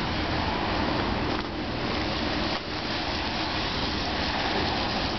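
Street traffic on a rain-wet road: cars passing close by, their tyres hissing on the wet pavement over a steady bed of engine noise.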